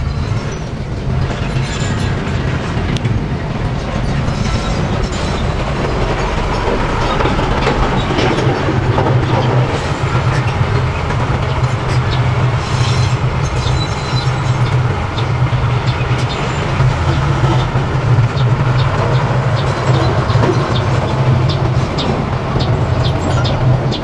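Diesel engine of a mini crawler bulldozer running steadily under load, with a rattle of clanking clicks from its steel tracks as it pushes soil.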